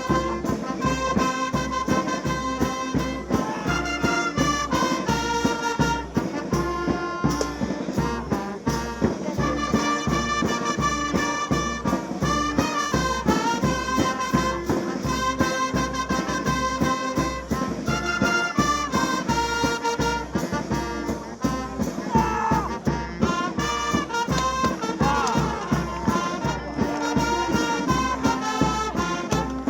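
Music led by brass instruments, horns playing a melody over a steady drum beat.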